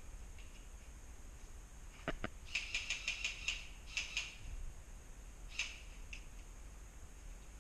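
Airsoft gun shots: two sharp pops about two seconds in, then a quick string of about seven pops within a second, with a few more single pops after.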